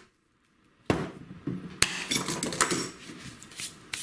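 A series of sharp knocks and clicks starting about a second in, the loudest two just under a second apart, then lighter handling noises. This is a cordless drill being set down on a perforated MDF workbench and a screwed-together MDF block and its clamp being handled.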